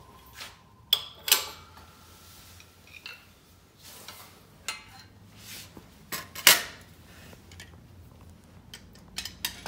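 Scattered metallic clinks and knocks from handling a homemade aluminum louver-punch die set and its sheet metal, with one sharp clank about six and a half seconds in and a quick run of clicks near the end.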